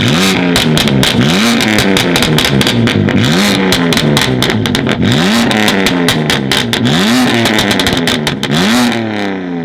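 Tuned sports car engine revved hard about eight times in quick succession, roughly once a second, with loud exhaust crackles and pops throughout; near the end the revs fall away.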